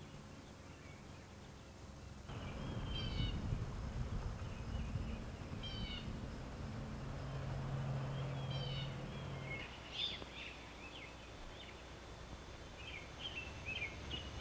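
Outdoor ambience: small birds chirping in short bursts every few seconds, over a low rumble that starts about two seconds in and stops about two-thirds of the way through.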